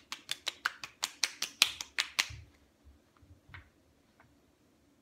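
Open palms rapidly slapping bare cheeks, a person smacking his own face with both hands, about six smacks a second, stopping a little over two seconds in.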